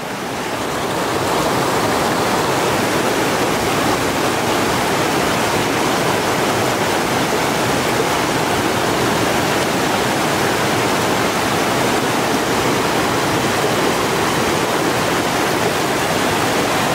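Shallow mountain river rushing over rocks and a low weir: a steady, loud rush of water that swells over the first second or two, then holds.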